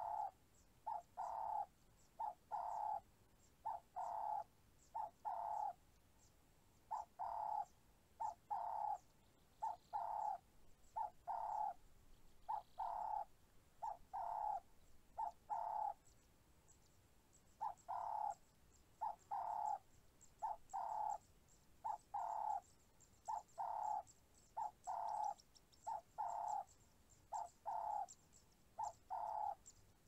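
A bird calling over and over in two-note phrases, a short note followed by a longer one, about once every second and a half, with brief breaks about six seconds in and again around sixteen seconds in. Faint high chirping runs underneath.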